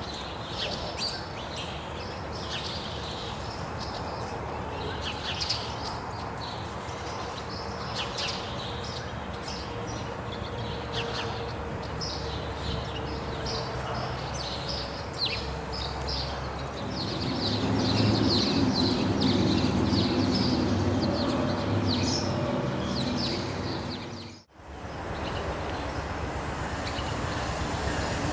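Small birds chirping over the low rumble of a distant freight train rolling by; the rumble swells louder for several seconds about two-thirds of the way through. After a sudden break near the end, the steady, growing rush of another approaching train.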